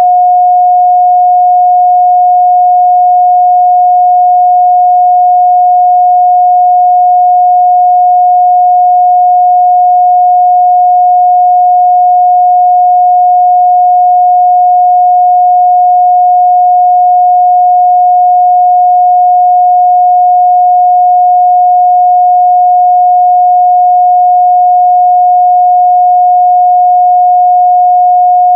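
A steady, loud 721 Hz sine-wave test tone, one pure pitch held unchanged, with no overtones.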